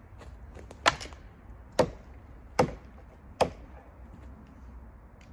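Hatchet chopping wood: four sharp strikes a little under a second apart.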